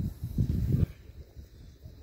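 Wind buffeting the microphone in low, uneven gusts that die down a little under a second in.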